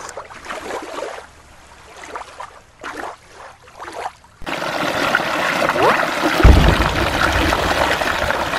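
Shallow stream water trickling faintly over stones, then about four seconds in a much louder, steady rush of flowing water sets in suddenly, with a brief low rumble a couple of seconds later.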